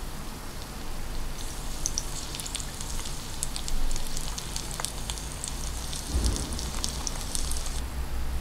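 Small flour-coated chicken pieces deep-frying in hot oil in a miniature pot: a sizzle full of small crackling pops that starts about a second and a half in and stops shortly before the end.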